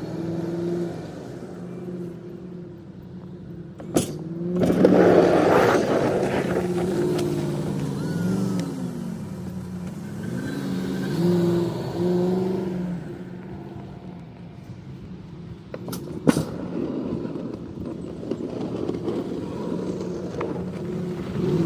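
Vehicle engine working, its revs rising and falling. Two sharp knocks come about 4 and 16 seconds in, and a loud rush of scraping noise follows the first.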